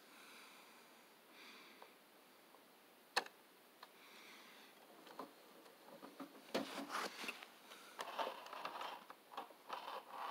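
1:32 scale toy trucks being handled: a single sharp click about three seconds in, then, in the second half, a run of small clicks, knocks and scrapes as a trailer is fitted onto a tractor unit.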